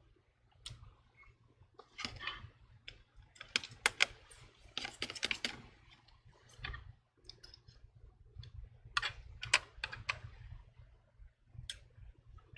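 Precision screwdriver and fingertips clicking and scraping against an iPhone 11's metal connector bracket and its tiny screws: scattered sharp ticks with a few brief scratchy rustles.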